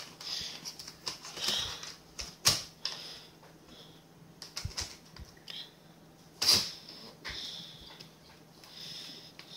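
Plastic keyboard surround of a Dell Alienware M14x R3 laptop being pried and lifted off by hand: irregular clicks and snaps of its clips, with short scraping and rubbing of plastic, the loudest snap about six and a half seconds in.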